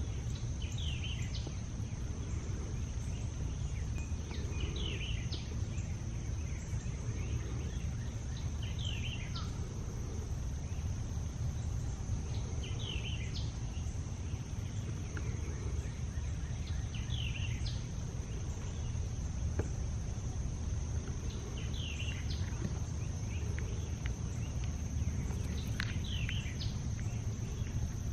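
Outdoor ambience: a steady low rumble with a high, even insect drone, and a songbird repeating the same short chirping phrase about every four seconds.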